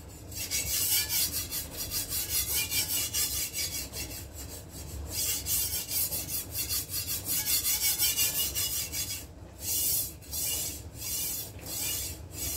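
Steel kitchen knife edge scraping across a small wet Fällkniven DC4 pocket whetstone held in the palm, raising a burr. Fast back-and-forth rasping strokes, several a second, break off briefly about nine seconds in. They then go on as slower, separate strokes about one a second.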